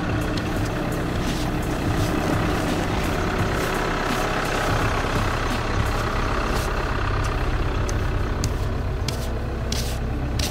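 A van's engine idling steadily while a snow brush sweeps thick snow off the van's windscreen and roof in repeated scraping strokes.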